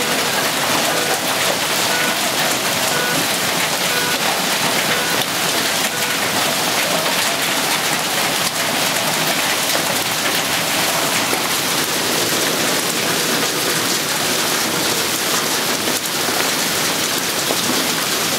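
Hail mixed with heavy rain pelting the pavement and parked cars: a dense, steady hiss of countless small impacts.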